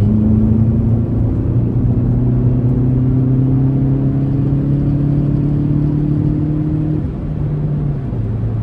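Turbocharged four-cylinder of a tuned Mk7 VW GTI accelerating under boost. Its pitch climbs steadily for about seven seconds, then falls as the throttle is lifted, with a further drop about a second later.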